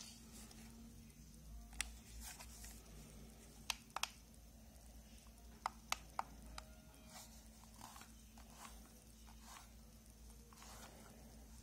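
Faint handling noise of a plastic paddle-brush hair straightener on a wooden floor: a handful of sharp, scattered clicks and taps over a low steady hum.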